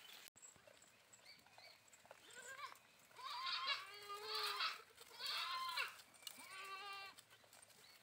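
Sheep and goats of a grazing flock bleating: about four wavering calls in quick succession in the second half, the last one quavering.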